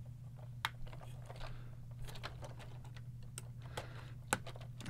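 Scattered light clicks and taps of LEGO plastic parts as hands pry at the locomotive's roof section to get at the battery box, about six sharp clicks with the loudest near the end, over a low steady hum.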